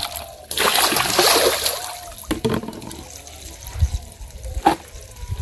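Water splashing and sloshing in a plastic bucket as leafy greens are washed by hand, loudest for a second or so near the start, then quieter trickling with a few light knocks as the wet greens are handled.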